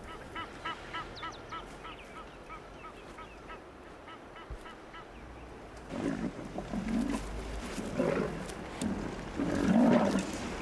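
A quick run of short honking bird calls, goose-like, several a second at first and then sparser. From about six seconds in, louder rough growls from lions take over in uneven pulses and make up the loudest part.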